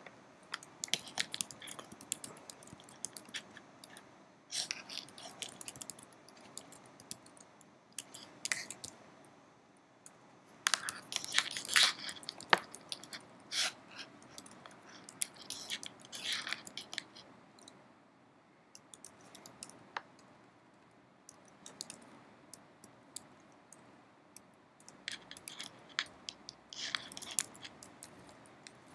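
Computer keyboard being typed on: irregular runs of keystroke clicks, with a few pauses of a couple of seconds between runs.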